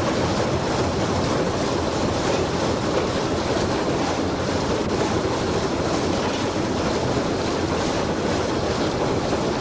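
GER N7 0-6-2 tank steam locomotive running on the line: a steady, dense noise of the engine and its wheels on the rails at a constant level.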